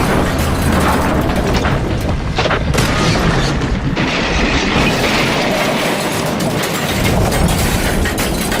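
Train crash sound effect: loud, continuous booming and rumbling with a few sharp impacts about two and a half and four seconds in.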